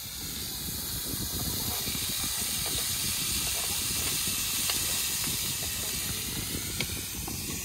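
Food sizzling and crackling in a hot pan as it fries, a steady hiss.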